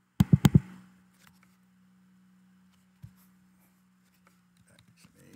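Four sharp clicks in quick succession from a computer's keys and mouse during text editing, then a single softer click about three seconds in, over a faint steady low hum.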